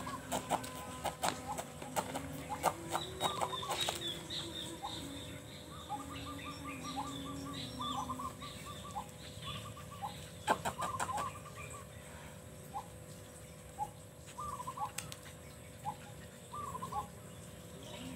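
Birds around a yard: short chirps and calls repeating irregularly, with low chicken clucking, and quick runs of sharp clicks in the first few seconds and again around ten seconds in, over a faint steady hum.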